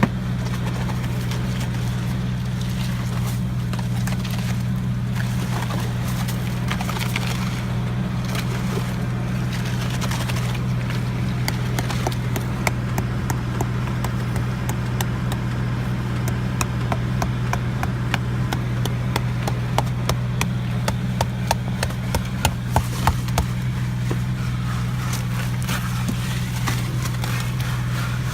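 An engine running steadily with a low hum, with many sharp clicks and knocks over it that come more often in the second half.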